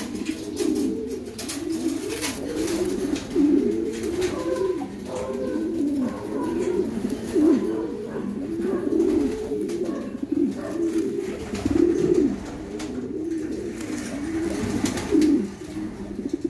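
Racing pigeons cooing, overlapping coos rising and falling one after another without a break.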